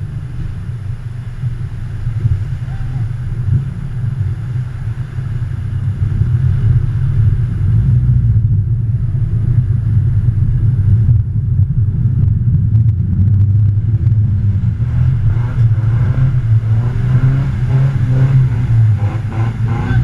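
Off-road 4x4 engine working hard with a deep, steady rumble as the vehicle wades a muddy river, louder from about six seconds in.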